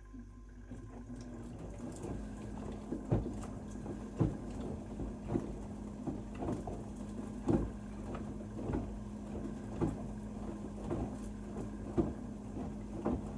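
LG front-loading washing machine running a wash: the drum motor hums steadily from about two seconds in, and wet laundry tumbles and sloshes, thumping softly about once a second.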